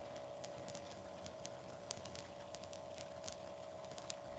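Faint room tone: a steady thin hum with scattered light clicks.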